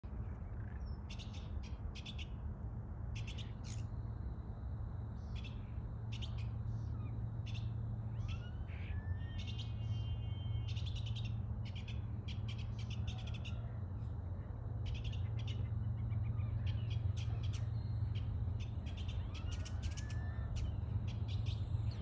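Common starlings calling from a treetop: short, harsh, clicky notes in quick clusters, with two rising whistles, over a steady low rumble.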